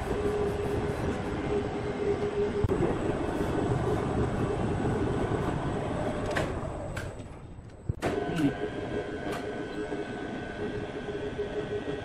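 Overhead crane running as it carries a suspended slab: a steady mechanical rumble with a hum, like a machine travelling on rails. It drops away for about a second past the middle, then comes back with a higher whine added.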